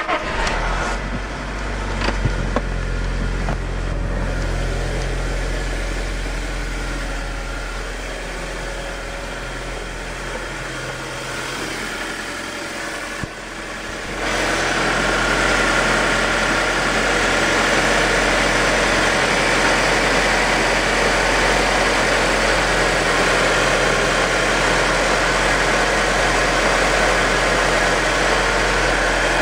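Audi A4 2.0T's turbocharged four-cylinder engine idling steadily just after being started. The sound gets louder and fuller about halfway through.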